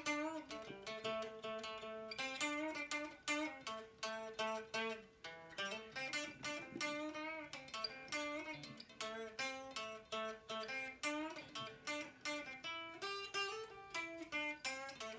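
Guitar playing an instrumental break: a quick run of picked melody notes over moving bass notes.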